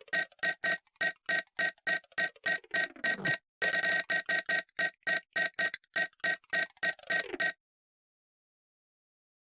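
Nokia 6800 mobile phone ringtone playing: a fast run of short, evenly spaced electronic notes, about five a second, with a short break partway through, then it stops.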